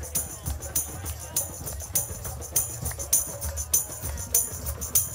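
Rhythmic percussion music: bright jingling strikes on a steady beat, a little under two a second with lighter ones in between, over a low drumming pulse.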